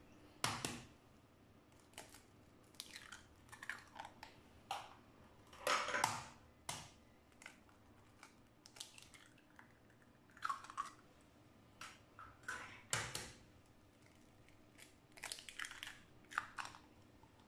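Three raw eggs cracked and broken open by hand over a ceramic bowl: a scattering of short taps and crackles of eggshell.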